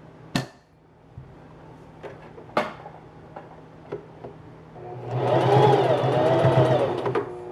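Singer Heavy Duty 4411 sewing machine running in one burst of stitching for about two seconds in the second half, with a rapid ticking of the needle. Two sharp clicks come earlier, near the start.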